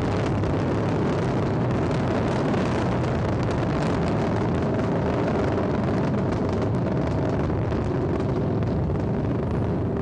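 Ariane 5 rocket in powered ascent: a steady roar from its two solid rocket boosters and Vulcain core-stage engine burning together.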